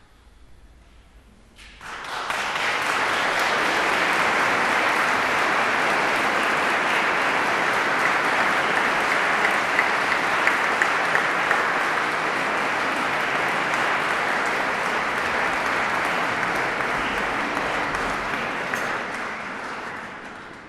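Concert audience applauding at the end of a piece in a large church. The applause breaks out suddenly about two seconds in, holds steady, and fades away near the end.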